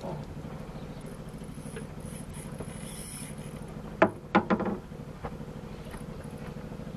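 Fishing boat's engine running steadily in a low hum, with a few short sharp knocks about four seconds in.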